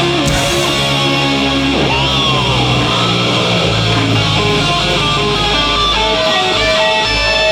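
Heavy metal band playing live, loud and steady: electric guitar holding and bending notes, with vibrato near the end, over a sustained bass.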